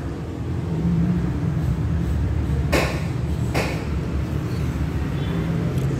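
A steady low machine hum, with two sharp knocks a little under a second apart about three seconds in.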